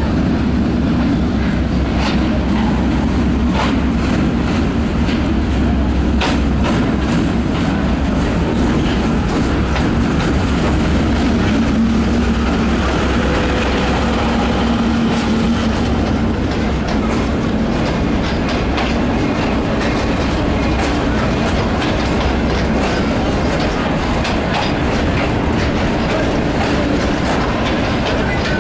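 ZCU-20 diesel-electric locomotive moving slowly, its engine running with a steady low rumble. Scattered clicks and clanks come from the wheels and track.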